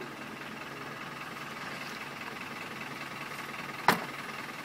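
A steady mechanical drone, like an engine running, holding several fixed tones. A single sharp knock about four seconds in.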